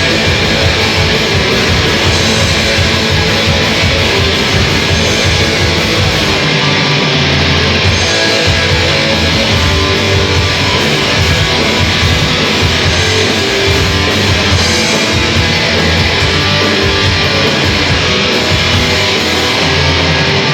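Live heavy metal band playing loud, continuous music led by electric guitars.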